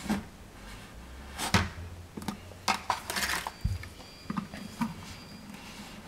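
Utility knife blade scraping along the painted wall at the bottom edge of a wall plate, scoring through the paint seal so the plate can come off without tearing the wall; a series of short scrapes, the longest about three seconds in.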